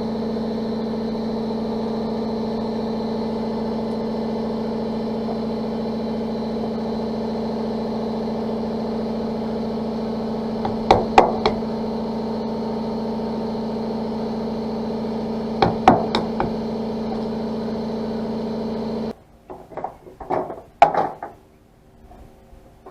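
Die grinder running at a steady high speed while grinding down the door handle's rivets, with a few brief clicks around the middle. It cuts off suddenly near the end, followed by a few sharp knocks.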